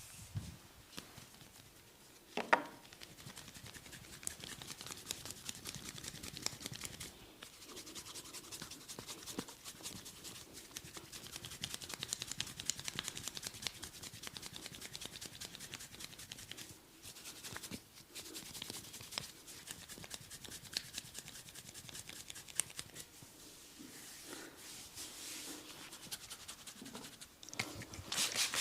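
Fingers scratching and rubbing through hair on the scalp, a dense fine crackling, with one sharp snap about two and a half seconds in.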